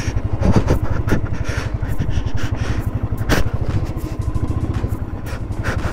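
Motorcycle engine running as the bike is ridden, a rapid low pulse with a few scattered sharp knocks and clatter.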